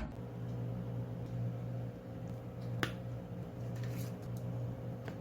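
A steady low hum with one sharp click a little under three seconds in and a fainter tick near the end.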